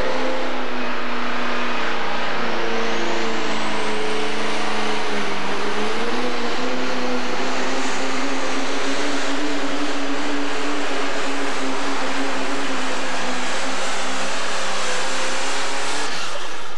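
Turbocharged diesel engine of a Pro Stock pulling tractor running flat out under load as it drags the sled, with a high whine climbing over the first several seconds. The engine note drops away abruptly near the end as the pull finishes.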